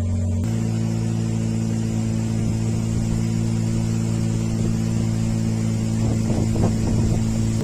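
Small boat's outboard motor running steadily under way. Its pitch shifts once, about half a second in.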